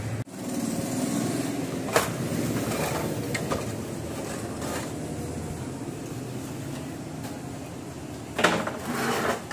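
Inverter main circuit board being worked loose and lifted out of its sheet-metal case: a sharp click about two seconds in and a brief clatter near the end, over a steady low background hum.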